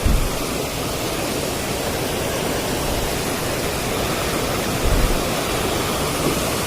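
Steady rushing of water, with a brief low thump at the start and another about five seconds in.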